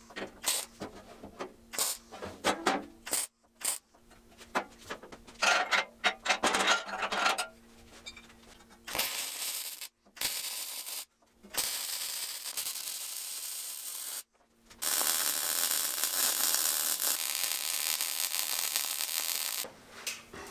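MIG welding on sheet-steel brackets. Clicks and short crackling bursts fill the first seven seconds or so. From about nine seconds come three runs of steady arc sizzle, broken by brief pauses, and the last lasts about five seconds.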